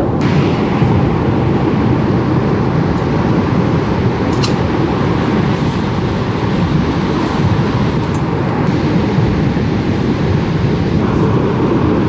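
Steady rushing roar of ocean surf.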